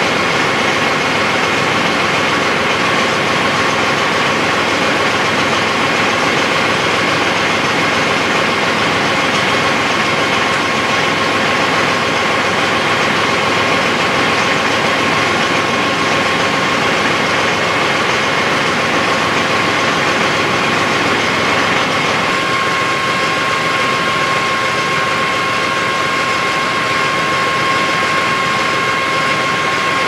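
Steady machine noise: a constant running hiss with a fixed high whine, changing character about three-quarters of the way through as the lower part thins out.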